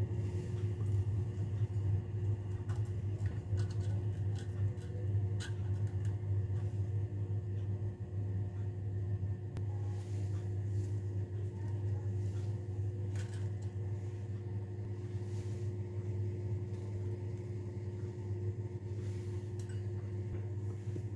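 Steady low mechanical hum with a few light clicks.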